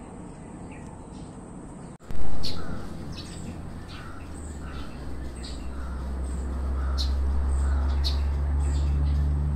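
Small birds chirping in short, repeated calls. A sudden loud thump comes about two seconds in, and a low rumble builds up underneath from about halfway through.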